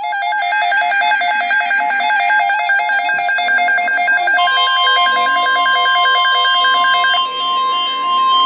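Electronic emergency alert tones: a rapid, evenly pulsing two-pitch warble. About halfway through, a steady single-pitched alarm tone joins it and carries on alone after the warble stops near the end. This is the alert signal that opens the tornado watch message.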